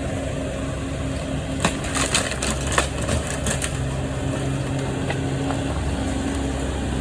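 An engine runs steadily, and from about one and a half to three and a half seconds in comes a burst of sharp cracks and snaps, like timber breaking as a house wall is pulled down.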